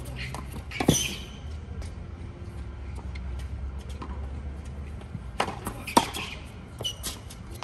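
Tennis balls struck by racquets on an outdoor hard court: a sharp hit about a second in, then after a lull with a low rumble, a few more hits around five to seven seconds in, the loudest near six seconds.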